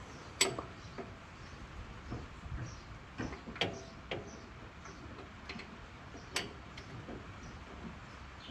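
Hand tools clicking and clinking on metal in irregular, sharp ticks, a few louder than the rest, while working on a tractor's alternator mounting.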